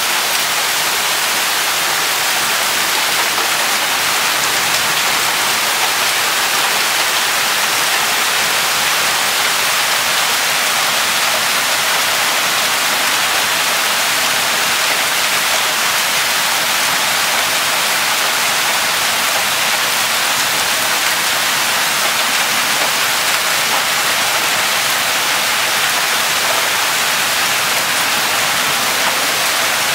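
Hailstorm: hail and heavy rain pouring down together in a steady, dense hiss, with no single strikes standing out.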